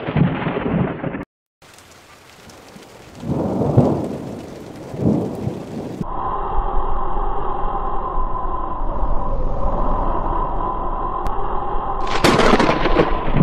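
Volcano-eruption sound effect: thunder-like rumbling booms swelling at about four and five seconds in, then a steady humming rumble from about six seconds, and a loud blast near the end.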